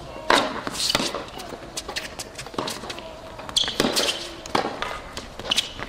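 Tennis rally on a hard court: sharp racket strikes on the ball and ball bounces, about one every second, with short high squeaks mixed in.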